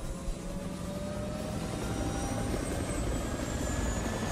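Steady helicopter rotor and engine sound, a continuous low whirring that goes with a toy military helicopter being flown.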